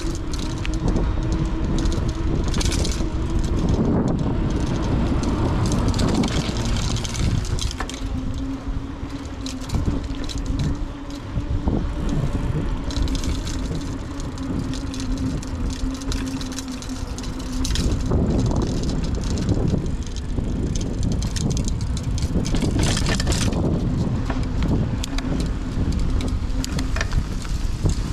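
Mountain bike being ridden over grass and concrete paving: steady tyre rumble with scattered knocks and rattles over bumps, and wind buffeting the microphone.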